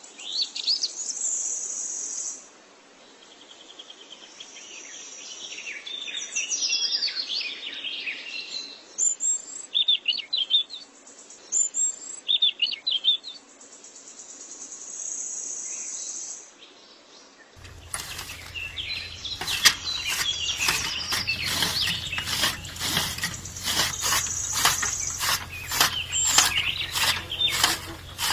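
Birds chirping and twittering in short high calls. About two-thirds of the way in they give way to a low hum with rapid, regular mechanical clicking, like a ratchet or small gear mechanism.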